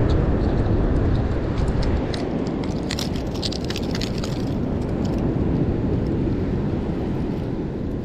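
Wind buffeting the microphone over steady surf on the beach. A cluster of light clicks and rustles comes about three seconds in as pliers work a lure out of a striped bass's mouth.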